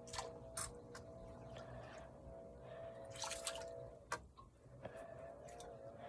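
Faint water drips and light splashes as a fishing lure is worked in the water, with a few sharp ticks.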